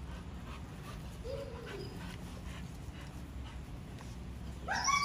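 Pit bull whining while begging for raw chicken: a short falling whine about a second in, then a louder, higher whine near the end that rises and then falls.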